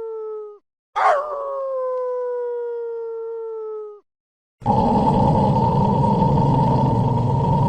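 A large dog howling: two long, drawn-out howls of about three seconds each, their pitch sagging slightly. About halfway through, a louder, harsh, rasping call takes over and keeps going.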